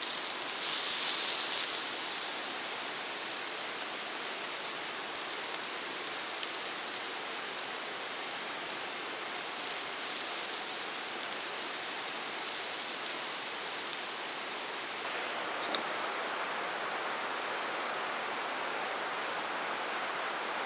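Hamburger patties sizzling as they cook: a steady crackling hiss with a few small pops. The hiss loses some of its top end about three quarters of the way through.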